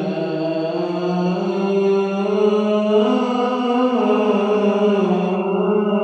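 A single male voice chanting an Islamic devotional line at the mosque, one long unbroken phrase of held notes with slow ornamental bends in pitch.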